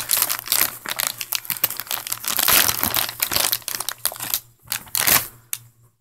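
A plastic soft-bait bag crinkling and crackling as it is handled and opened: a dense run of irregular rustles that stops abruptly near the end.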